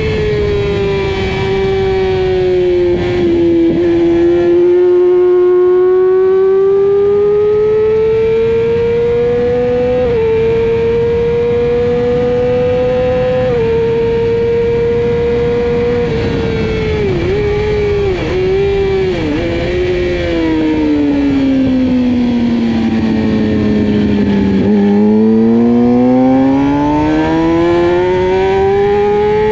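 2009 Yamaha YZF-R6 599 cc inline-four sportbike engine at racing revs, heard from on board. Its pitch holds high with slow swells, dips sharply a few times between about 17 and 20 seconds in, then falls steadily to its lowest point about 24 seconds in before rising again under hard acceleration.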